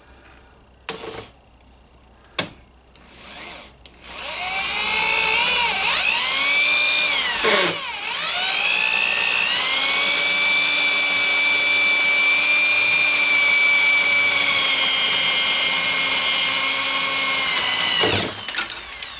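Electric drill boring out a steel door-hinge rivet. A couple of faint clicks come first; about four seconds in the motor winds up to a high whine, dips briefly, then runs steady until it stops near the end, as the bit breaks through the rivet.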